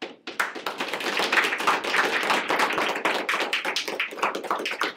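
Audience applauding: many hands clapping in a dense patter that starts abruptly and begins to thin out near the end.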